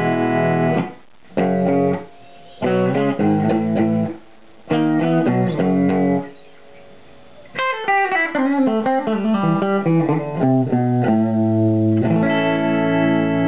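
Clean electric guitar, a Strat fitted with humbuckers and a single coil, played through an amp with no fuzz: a few short chord phrases broken by pauses, then a quick descending run of single notes and a chord left ringing near the end.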